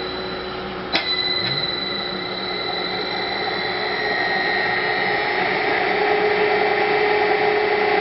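A 5 hp induction motor on an Allen-Bradley 1336 Plus II variable frequency drive whines with the drive's steady high switching tones as it reverses. About a second in there is a sharp knock, the little jerk at the crossover. The whine then climbs in pitch and grows louder as the motor ramps back up to speed in the other direction.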